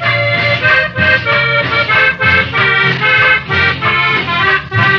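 Accordion-led cumbia music with a steady beat and a pulsing bass line.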